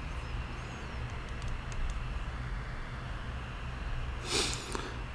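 Quiet room tone: a steady low hum and hiss, a few faint ticks, and a short hiss about four seconds in.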